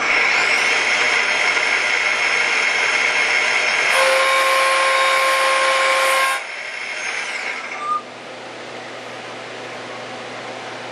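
CNC lathe's live-tooling spindle spinning up with a rising whine, then running steadily. About four seconds in, an 8-flute replaceable-insert thread mill cuts an external tapered pipe thread in stainless steel pipe, dry, adding a louder steady tone for about two seconds. The spindle then winds down with a falling whine and a short knock, leaving the machine's steady hum.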